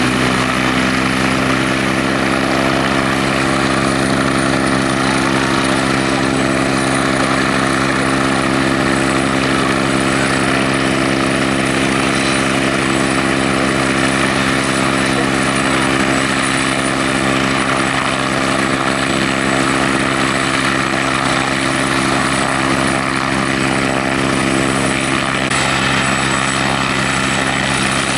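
Westland Wasp HAS Mk.1 helicopter running on the ground with its main rotor turning. Its Rolls-Royce Nimbus turboshaft gives a steady, unchanging whine over the rotor noise.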